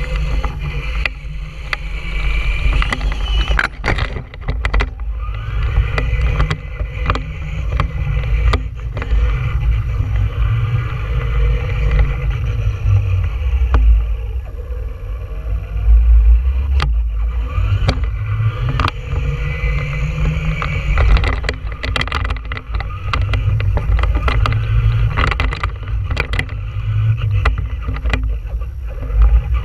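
Traxxas Stampede 2WD RC monster truck driving over concrete, heard from a camera mounted on the truck. A heavy, continuous low rumble from the truck's vibration and tyres, an electric motor whine that rises and falls as it speeds up and slows, and many sharp knocks as it hits bumps and seams.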